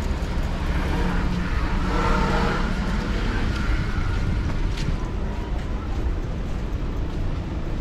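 Street ambience: a steady rumble of car traffic on the road alongside, with snatches of passersby talking, clearest a second or two in.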